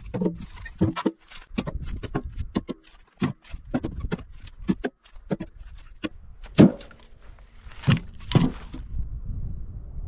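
Firewood logs being tossed and dropped into a steel tractor loader bucket: an irregular run of wooden knocks and clanks against the metal, some ringing briefly, with the loudest hits about two-thirds of the way through.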